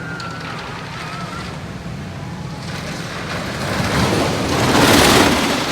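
GCI wooden roller coaster train running on its track: a steady low rumble, with a rush of noise that builds about three seconds in, peaks near the end and then eases.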